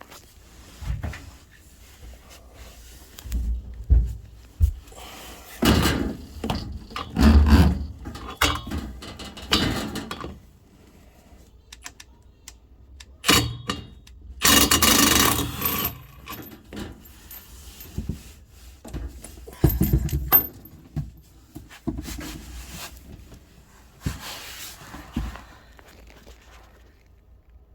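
Metal hand tools clanking, knocking and scraping against the back of an LG front-load washer as a bolt is worked loose and taken out, with a longer rasping stretch about fifteen seconds in.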